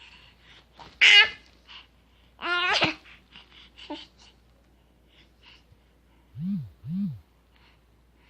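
A baby vocalizing: a loud, short, high squeal about a second in, then a longer squeal that rises and falls, followed near the end by two short, low hums.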